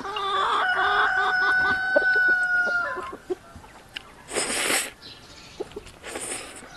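A rooster crows, one long steady call of about three seconds. Then noodles are slurped twice, a louder slurp about four and a half seconds in and a softer one near the end.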